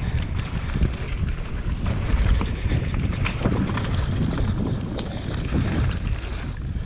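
Wind buffeting an action camera's microphone over the rumble of mountain bike tyres on a dirt trail, with scattered clicks and rattles from the bike and one sharp click about five seconds in.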